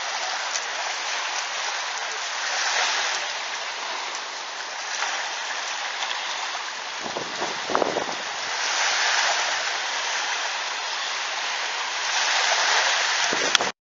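Small sea waves breaking and washing up on a beach, a steady hiss that swells and eases every few seconds.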